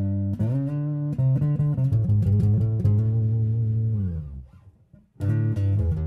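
Electric bass guitar played through a Carvin BX700 bass amp head in tube preamp mode, with the contour control turned all the way up, giving a muffled tone. A few plucked notes lead into a long held low note that dies away about four seconds in, and playing starts again just after five seconds.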